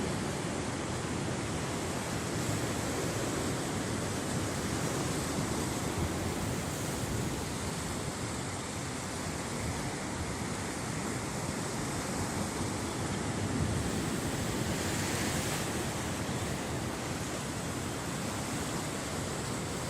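Steady rush of moving water, an even unbroken noise.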